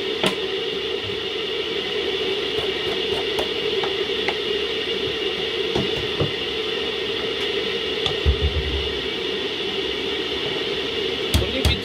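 A cooking spoon stirring a steaming pot of ogbono soup on a gas hob, with a few light clinks and two short runs of low knocks against the pot, over a steady hum.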